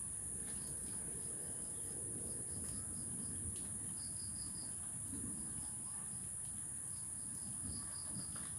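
Insects calling: a steady high-pitched drone with repeated trains of short chirps, about five a second, over a low rustle.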